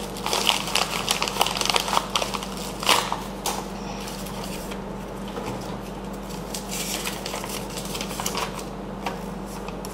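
An envelope being torn open and its paper crinkled and rustled, with sharp crackling in the first three or four seconds, then softer paper rustling.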